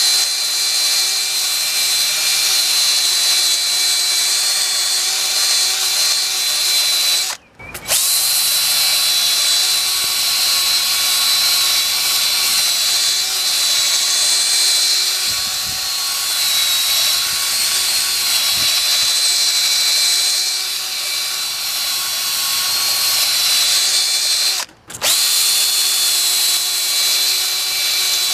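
DeWalt cordless drill running steadily with a yellow nylon drill-brush attachment spinning against a terracotta pot, a constant motor whine. It breaks off for a moment twice, about a quarter of the way in and near the end.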